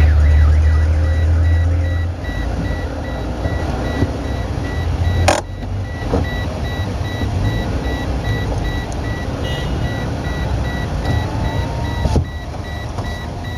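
Car cabin noise while driving: a steady low engine and road rumble, heaviest for the first two seconds. A faint high-pitched beep repeats throughout, and a sharp click comes about five seconds in.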